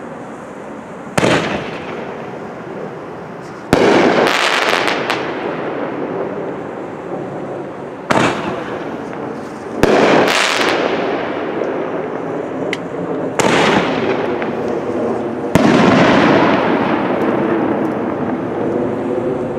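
Aerial fireworks bursting in the sky: about six loud bangs a few seconds apart, each trailing off over a second or two.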